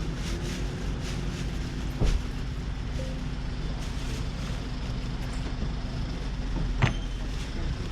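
A steady low mechanical hum under outdoor market background noise, with a sharp knock about two seconds in and another short knock near the end.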